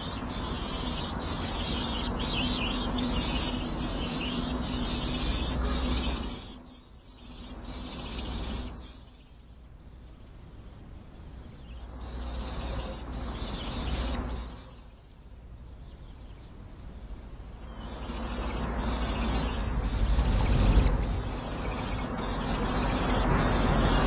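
Outdoor woodland ambience: a high insect drone and bird chirps over a broad rushing noise. The noise dips away twice in the middle and swells into a low rumble near the end.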